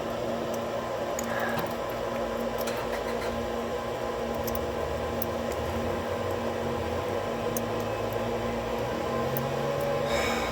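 A steady mechanical hum, like a fan or ventilation unit, with a few faint light clicks from small metal padlock parts being handled.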